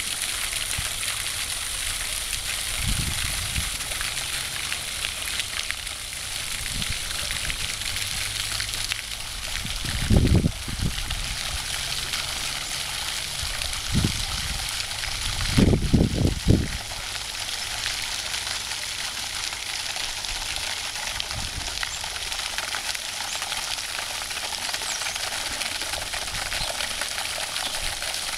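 Fountain jet spraying water into a pond: a steady hiss of falling spray and splashing. A few low bumps break in, the loudest about ten seconds in and a quick cluster around sixteen seconds.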